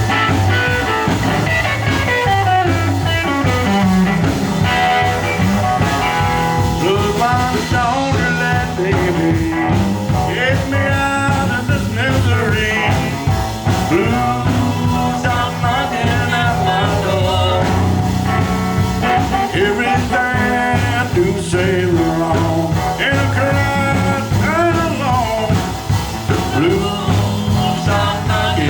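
Live blues band playing a catchy, swinging blues. A lead instrument bends its notes up and down over the steady bass and drums, with no sung words heard.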